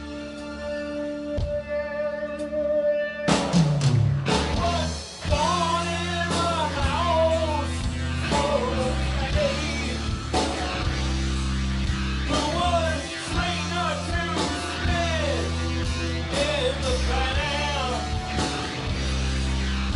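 Live rock band playing: held guitar and keyboard chords, then about three seconds in the whole band comes in with drums, bass and electric guitars under a sung melody.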